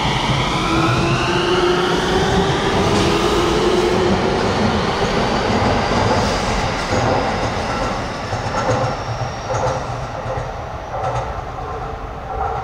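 Tsukuba Express TX-2000 series electric train pulling away, its motor whine rising steadily in pitch as it accelerates, over the rumble of wheels on the rails. The sound eases off in the second half, with a few sharp clicks.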